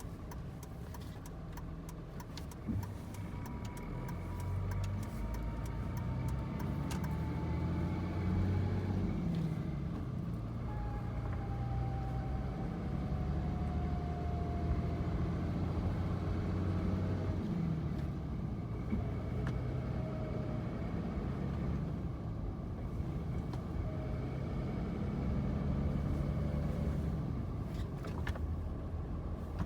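2005 Dodge Ram's 5.9 Cummins inline-six turbodiesel running while driven through the gears, with a thin siren-like whine that keeps coming and going and slowly falls in pitch. The cause is unknown: it comes on after gear shifts, seems to come from underneath the cab, and began after the driveshaft center support bearing was changed, which the owner suspects may be only a coincidence.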